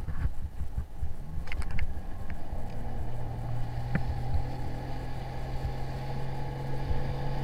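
Coach boat's outboard motor running steadily, its note coming in about a second in and holding level, with wind rumbling on the microphone.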